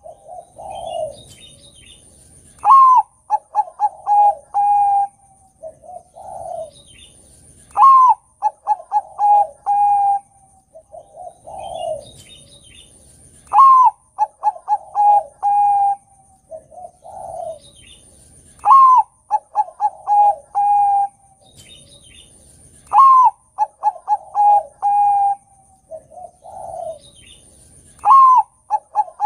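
Zebra dove (perkutut, Bangkok type) singing its cooing song over and over, about every five seconds: each phrase a rising note, a quick run of short notes and a long held note, with a lower coo between phrases.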